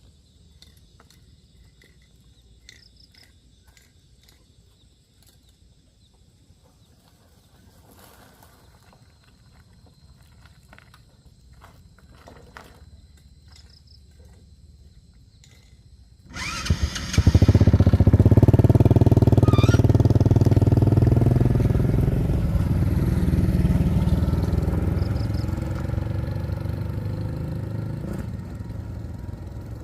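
An engine starts suddenly about halfway through and runs loudly and steadily, then slowly fades. Before it, only faint scattered clicks and knocks.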